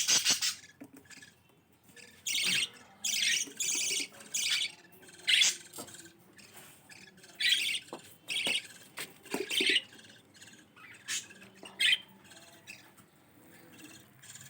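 Budgerigars chirping and squawking in short, high bursts, a dozen or so scattered calls with pauses between them.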